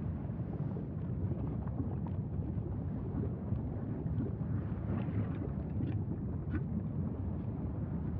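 Low, steady rumbling roar of the Mauna Loa lava fountain, mixed with wind buffeting the microphone. A few faint crackles come in about five to six and a half seconds in.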